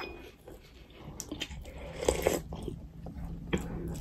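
Chewing and mouth noises of people eating rice and curry by hand, with several short, sharp clicks.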